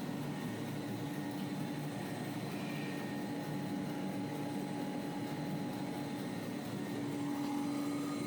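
Paper roll band saw cutting machine running, a steady hum with one constant tone and no change in load.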